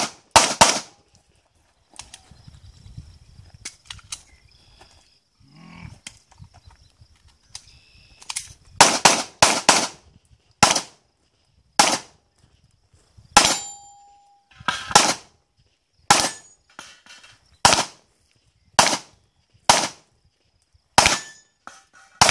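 9mm Glock 19 pistol shots: two quick shots at the start, a lull of several seconds, then a fast group of four around nine seconds in followed by single shots about a second apart. One shot about thirteen seconds in is followed by a brief ringing tone.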